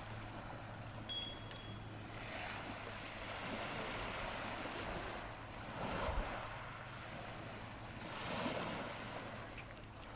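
Small waves breaking and washing over a shingle beach, surging three times, with wind buffeting the microphone.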